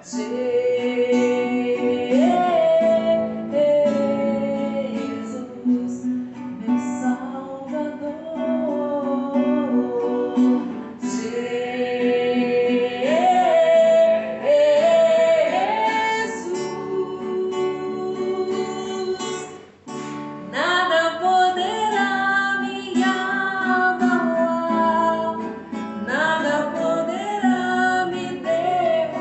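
Worship song music: acoustic guitar accompanying a woman's singing voice, with a brief drop in the music about twenty seconds in.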